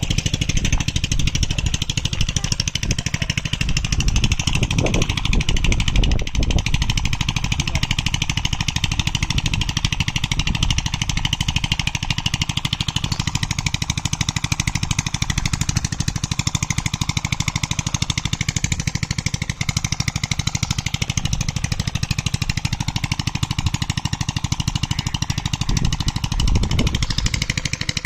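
A small engine running steadily, with a few low thuds about five seconds in and again near the end.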